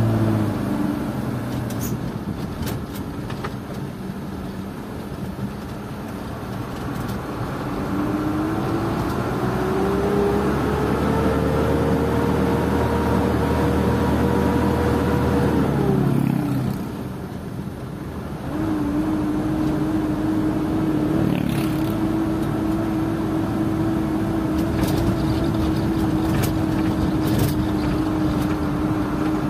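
Isuzu Elf NKR71 diesel truck engine heard from inside the cab while driving, with tyre and road noise underneath. The engine note climbs steadily as the truck accelerates, holds, then drops away sharply just past halfway. It picks up again a couple of seconds later and runs at a steady, lower pitch.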